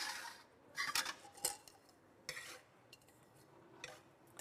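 Dishes and cutlery being handled: a handful of short, separate clinks and scrapes.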